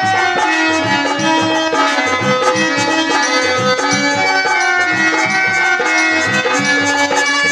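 Instrumental Indian folk devotional music: a bulbul tarang (keyed Indian banjo) playing the melody in sustained notes over a steady, even percussion beat.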